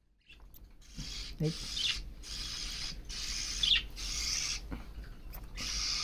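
Budgerigar chick making raspy, hissing calls in short runs while held in the hand, with a few brief high squeaks.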